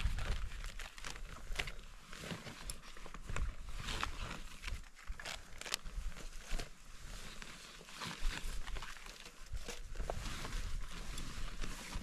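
Irregular rustling, crinkling and small clicks from a backpack and the bags and gear inside it being rummaged through and unpacked by hand.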